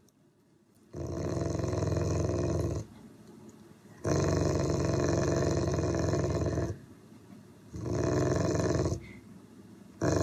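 Dog rumbling with each breath: four long, rasping, low rumbles separated by pauses of about a second, the last still going at the end.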